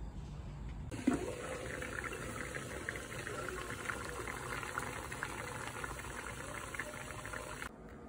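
Water boiling in a pot steaming sweet potatoes under a glass lid, a steady bubbling, crackling hiss. It starts about a second in and cuts off shortly before the end.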